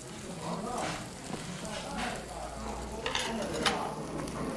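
Black-pork belly sizzling steadily on a tabletop grill plate, under close chewing, with a couple of sharp clicks a little after three seconds in.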